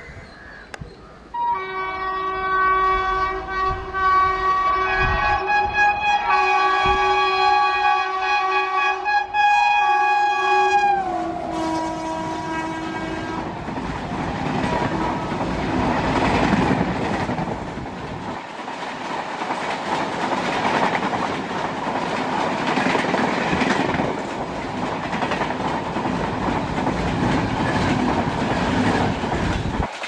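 WAP-7 electric locomotive's horn sounding continuously as the train approaches, a held chord of several tones whose pitch drops as the locomotive passes, about eleven seconds in. The horn stops a couple of seconds later, and the coaches run past with a steady rush and clickety-clack of wheels over rail joints.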